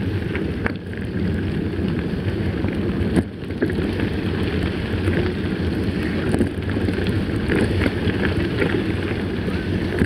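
Steady wind noise on the microphone of a handlebar-mounted camera, with the rumble of mountain bike tyres rolling over a gravel dirt road.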